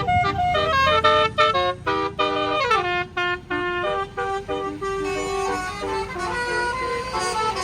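Tour bus's basuri telolet horn, a multi-tone musical bus horn, playing a quick tune of short stepped notes. It slides downward about two and a half seconds in and holds longer notes in the second half, over a low engine rumble.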